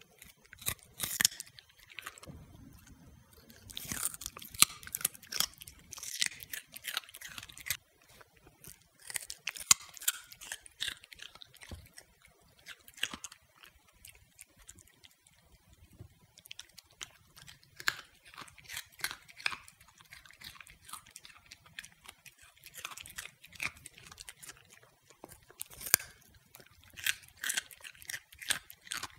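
An Italian greyhound crunching and chewing a raw carrot stick: spells of crisp crunches with short pauses between.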